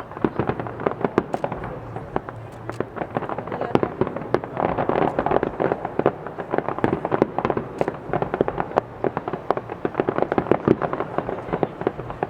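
Fireworks display: a dense, continuous barrage of sharp bangs and crackles, many per second.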